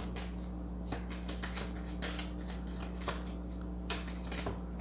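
A deck of tarot cards being shuffled by hand: many soft, quick flicks and slides of the cards, a few a little louder than the rest. A steady low hum runs underneath.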